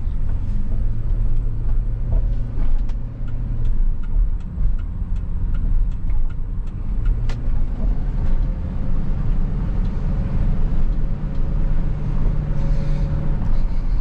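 Vehicle engine running steadily while driving, with road noise and frequent light clicks and rattles.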